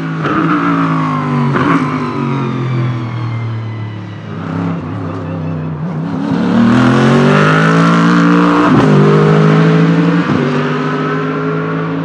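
Jaguar XKR-S GT3 race car's 5.0-litre V8 passing close by. Its pitch falls as it slows over the first few seconds, then rises as it accelerates out of a corner, with two sharp upshifts near the end.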